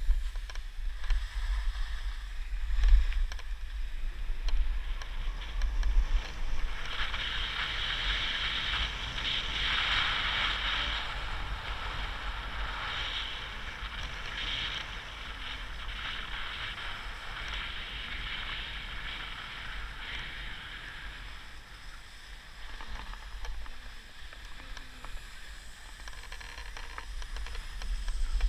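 Skis sliding and scraping over packed snow, a steady hiss that grows louder for a stretch in the middle and then eases off, over a low rumble of wind on the camera microphone.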